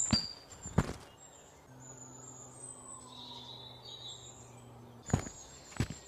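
Footsteps, two steps at the start and two more near the end with a pause of about four seconds between, over chirping birdsong. A faint low hum runs through the pause.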